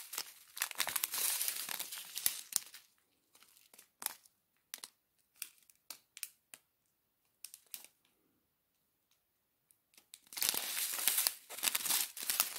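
Small clear plastic zip bags of diamond-painting drills crinkling as they are picked up and handled. Dense crinkling at the start, then scattered rustles and clicks, a short lull, and crinkling again near the end.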